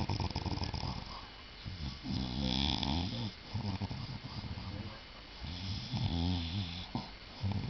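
Loud snoring: about four long snores in a row, with short pauses between them.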